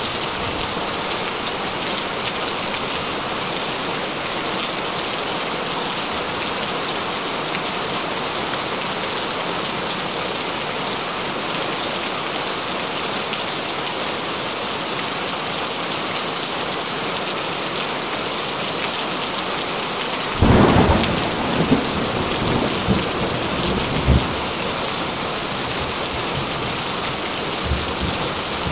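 Heavy rain falling steadily. About two-thirds of the way through, a thunderclap breaks and rumbles on for a few seconds, with a second sharp crack shortly after.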